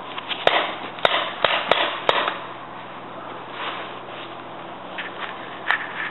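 Paintball markers firing: a quick run of five sharp pops in the first two seconds and one more near the end, over rustling brush.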